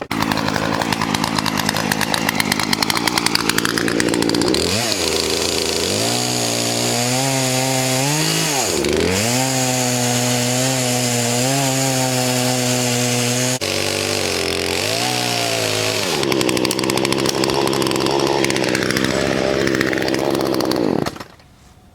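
Chainsaw running at high revs while cutting down a cedar stump close to the ground. Its pitch dips sharply twice and climbs back, and the saw stops suddenly about a second before the end.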